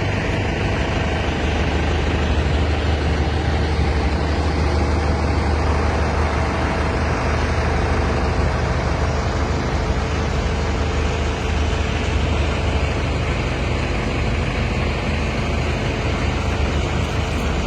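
Isuzu FTR concrete mixer truck's diesel engine running steadily at an even speed, with a strong low hum.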